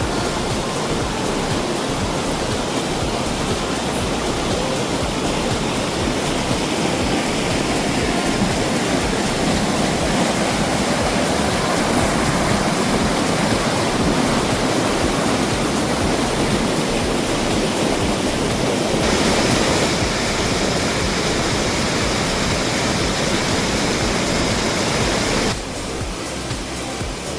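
Rushing water of a mountain valley stream tumbling over rocks, a steady loud hiss of flowing water. It changes abruptly about two-thirds of the way through and drops quieter about two seconds before the end, as if cut between shots.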